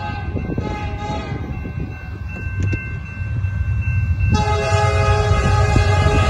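Canadian National diesel freight locomotive's air horn sounding a steady multi-note chord, starting abruptly about four seconds in, as the train approaches a grade crossing. Underneath it is the low rumble of the approaching train, growing louder.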